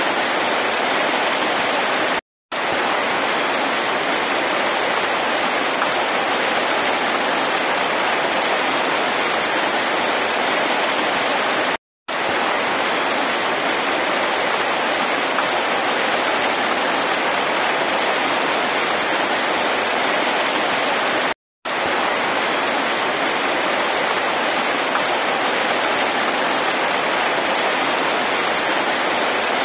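Heavy rain pouring down steadily on pavement and leaves, a dense even hiss. The sound cuts out completely for a split second three times, a little over 2 s, about 12 s and about 21 s in.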